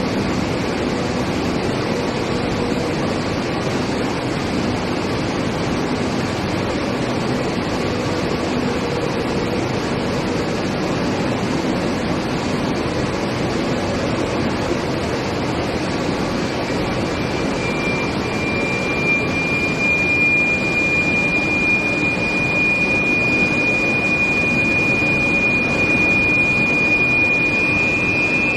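Steel plate induction reheating line running with a steady industrial noise. About two-thirds of the way through, a high steady whine comes in and grows louder, and a second whine just above it joins near the end.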